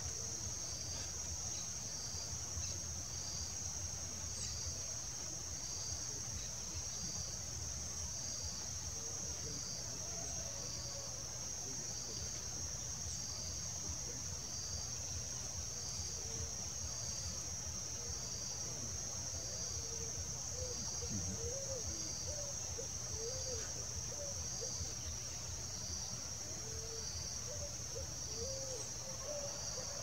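Insect chorus: a steady high-pitched buzz with a second insect pulsing at an even pace, about once every second and a bit, over a low background rumble.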